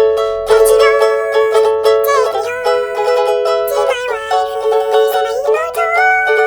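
Nightcore song, sped up and pitched high: a plucked-string accompaniment with a high voice gliding between notes, and almost no bass.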